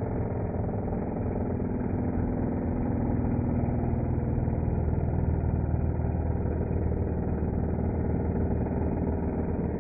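Handheld electric power tool running steadily as its cutter scoops into an oak beam, cutting a scalloped adze-style finish; the sound swells a little midway.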